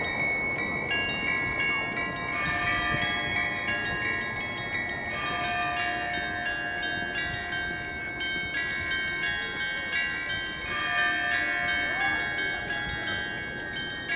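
Church bells of Saint Sophia's Cathedral ringing: several bells of different pitches are struck in a changing pattern. Each note rings on and overlaps the next.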